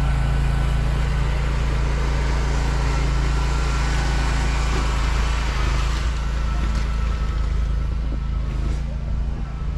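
John Deere Z530R zero-turn mower's engine running steadily under load, with a low, even hum.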